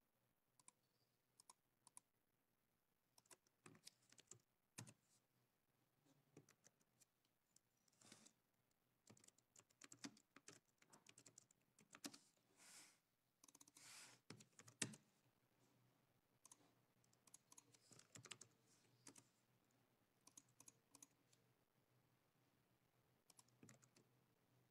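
Faint, irregular clicking of computer keys and a mouse, in scattered runs with pauses between, in an otherwise quiet small room.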